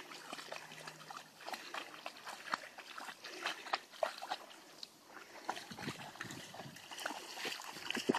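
An Irish Setter and an English Setter wading through shallow lake water, their legs splashing and sloshing with many short, irregular splashes.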